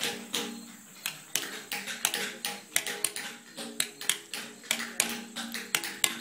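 Hammer striking a steel chisel into stone in quick, irregular sharp clinks, about four a second, as a round stone slab is carved.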